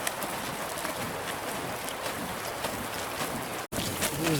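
Steady outdoor rushing noise with faint scattered clicks, cut off for an instant near the end.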